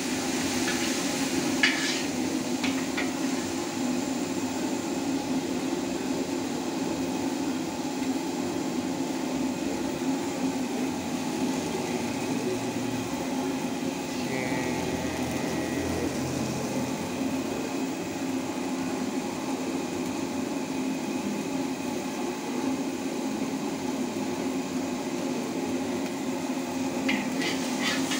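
Steady frying noise from a large steel wok of fried flat rice noodles over its burner. A few sharp clanks of a metal ladle and spatula against the wok come in the first seconds and again near the end.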